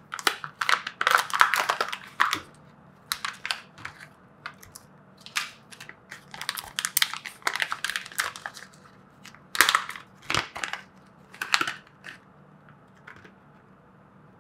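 Plastic packaging crinkling and tearing in irregular bursts as the small package of a brushless RC motor is opened by hand. The bursts stop a couple of seconds before the end.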